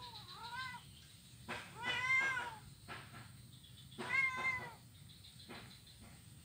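Kitten meowing: two short calls at the start, then two louder, longer meows about two and four seconds in, with a few short clicks between them.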